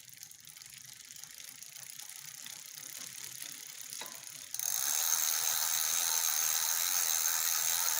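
Rear drivetrain of a 29er bike turning: a fine, fast ratcheting tick that grows steadily louder, then about halfway through jumps suddenly to a much louder, steady, dense rattling buzz. This is the noise the owner puts down to the rear derailleur.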